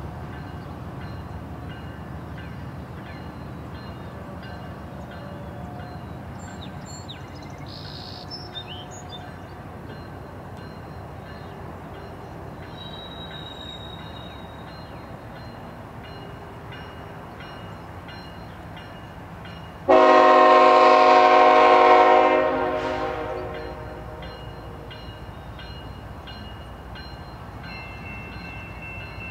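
CN freight train's lead GE ET44AC diesel locomotive approaching slowly with a steady low engine rumble. About two-thirds of the way through, its air horn sounds one loud blast, held for about two seconds before fading away.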